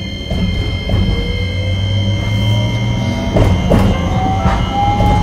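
Hiroden 5100-series tram no. 5108 accelerating away from a stop: the whine of its electric traction drive rises steadily in pitch as it gathers speed. A couple of clunks from the wheels and running gear come about three and a half seconds in.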